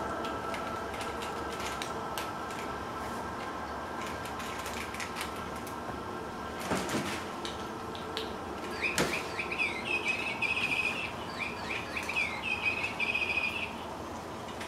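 Kittens playing on a hardwood floor: scattered light clicks and taps, with two sharper knocks about seven and nine seconds in. Then several seconds of high chirping calls come in short repeated phrases and stop shortly before the end.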